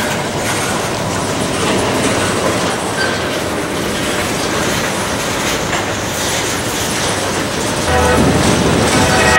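Freight cars rolling past on the rails with a steady rumble and clickety-clack of wheels over the track. Near the end a diesel locomotive horn comes in and holds a steady chord.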